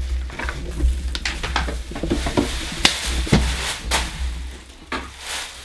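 Food sizzling in a frying pan amid kitchen clatter, with scattered sharp knocks; the loudest, a little before the middle, fits a plastic bag of eggs hitting the floor and breaking.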